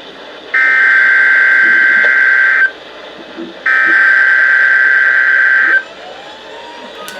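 NOAA Weather Radio SAME alert header: two bursts of screeching digital data tones, each about two seconds long, a second apart. The encoded header announces a severe thunderstorm watch.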